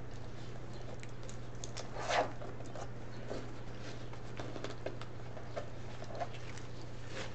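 Light rustling and crinkling of ribbon strips being folded and handled, with small scattered ticks and one louder rustle about two seconds in. A steady low hum runs underneath.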